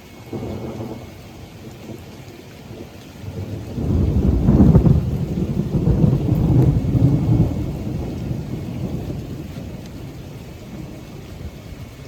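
Thunder in a strong thunderstorm: a short low rumble near the start, then a much louder, long rumble that builds about four seconds in and slowly dies away, over steady rain.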